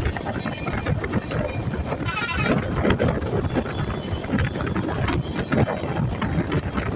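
A moving vehicle's rumbling running noise with irregular knocks and rattles, and a brief high, warbling sound about two seconds in.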